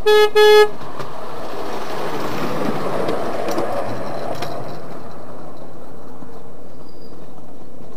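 Ride-on miniature park railway train giving two short toots, then running past on the rails: a rumble that swells and fades, with a couple of clicks from the wheels near its peak.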